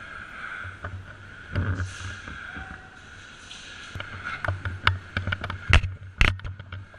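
Game guns firing during a skirmish: a scattered run of sharp shots from about four seconds in, the loudest two near the end, over rustling and handling noise from the player's movement.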